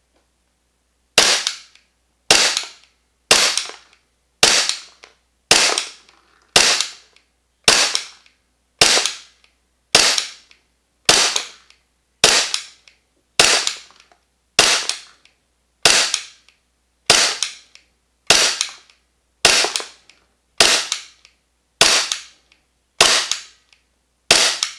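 VFC/Umarex Glock 45 gas blowback airsoft pistol, fitted with an energy-saving cylinder bulb and its factory recoil spring, firing semi-auto shot after shot. About twenty sharp cracks come at an even pace of roughly one a second, each with its slide blowback, starting about a second in.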